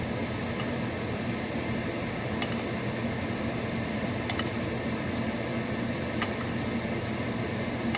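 Microwave oven running with a steady hum, with a few faint ticks about two seconds apart.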